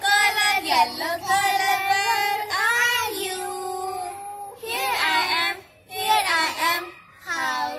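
Children singing together in short phrases with some long held notes.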